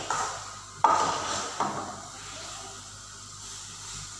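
Steel spoon stirring and scraping grated-carrot halwa around a nonstick frying pan, a few strokes in the first two seconds, the loudest about a second in. The halwa frying in ghee hisses faintly underneath.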